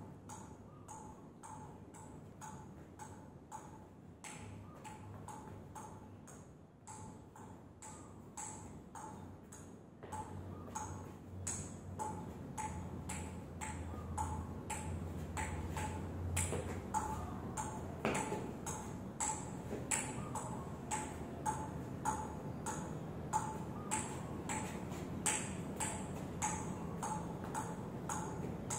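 A ping-pong ball is tapped over and over on a table tennis bat, making light, even pings about two a second. The taps grow louder about ten seconds in.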